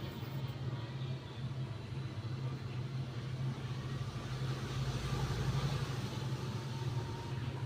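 A steady low mechanical hum over an even rumbling noise, with a faint thin tone coming in near the end; no distinct bird chirps stand out.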